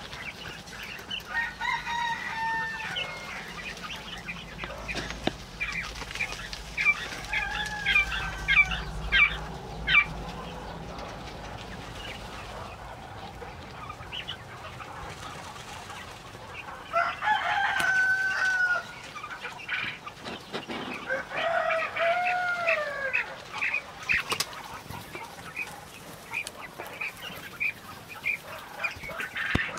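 Chickens: a rooster crowing about four times, with hens clucking in short calls between the crows.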